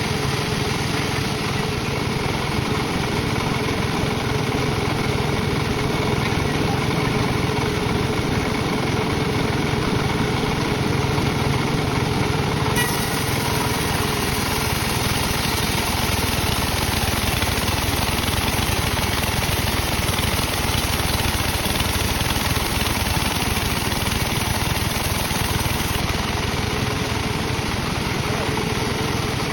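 Sawmill machinery running steadily as teak is sawn into rafter stock. A brighter hiss joins the steady running about thirteen seconds in and drops away a few seconds before the end.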